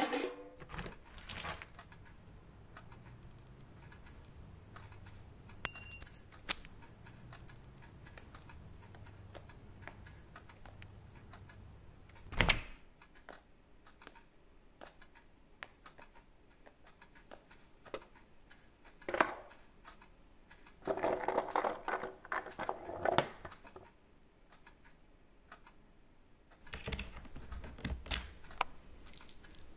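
Scattered clicks, clanks and rattles over a quiet room tone. A faint thin high whine runs for about ten seconds and stops with one loud knock; later come two bursts of clattering, the last as a key is turned in an equipment switch panel.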